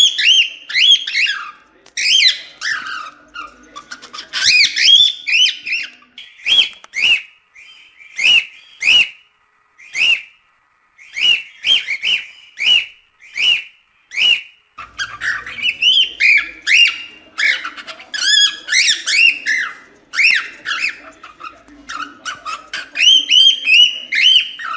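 Cockatiel singing: quick whistled, warbling phrases. In the middle these break into a run of short single whistled notes, about one or two a second, then the dense warbling resumes.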